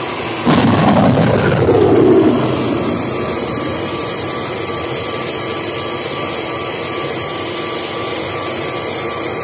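Surface-to-air missile launch: the rocket motor ignites with a loud blast about half a second in. After about two seconds it eases into a steady rushing noise as the missile climbs away.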